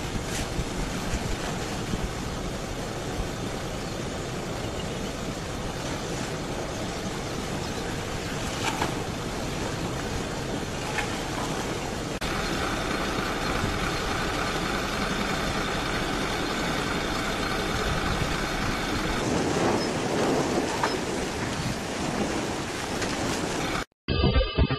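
Steady rushing roar beside an advancing lava flow that is burning a vehicle, with a few sharp cracks. About halfway the sound changes and faint steady tones come in over the roar; it cuts off abruptly near the end, and music starts.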